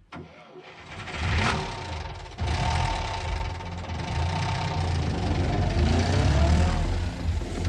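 A car engine running and revving, with its pitch rising and falling. It gets suddenly louder about two and a half seconds in.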